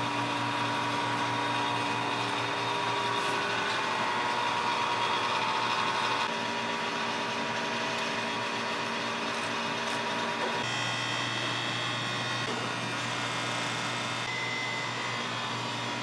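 Steady mechanical hum of an indoor hydroponic vertical farm's circulation fans and equipment, with several held tones. The hum changes character abruptly about six and ten seconds in.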